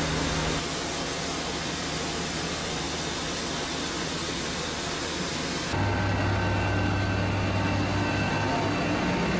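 Steady rushing hiss of a firefighting hose jet spraying water, with the low hum of a running pump under it. About six seconds in the sound changes abruptly to a louder, deeper hum with less hiss.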